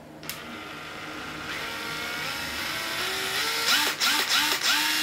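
Hitachi 9.6 V cordless screwdriver's motor running in reverse, free-spinning and growing louder. Its whine rises in repeated quick climbs as the speed trigger is squeezed, coming faster near the end. It runs very smoothly.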